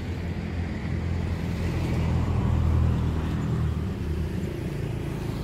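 Road traffic: a motor vehicle's engine running with a steady low hum, swelling slightly about two to three seconds in.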